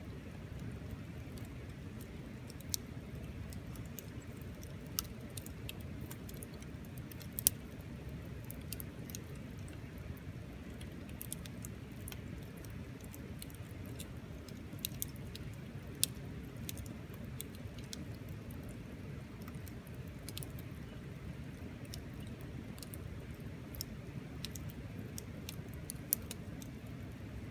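A wood campfire crackling, with irregular sharp pops and snaps over a steady low rumble.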